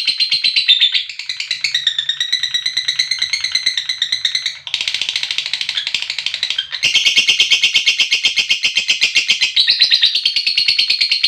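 Lovebird's 'ngekek' call: a long, loud, high-pitched rapid chattering trill of quick repeated notes, shifting in tone a few times without a break.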